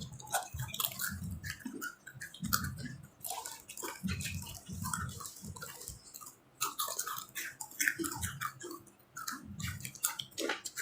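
Close-up chewing and crunching of a dry, spicy fried macaroni snack: irregular crisp crunches with soft low thuds from the mouth.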